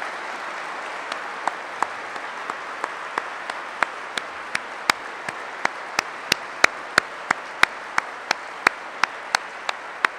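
Audience applauding, with one person's claps close by standing out in an even beat of about three a second, louder from about four seconds in.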